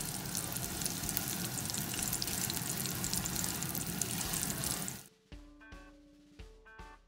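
Horse mackerel deep-frying in hot oil: a dense, steady sizzle full of fine crackles, which cuts off about five seconds in. A few soft music notes follow.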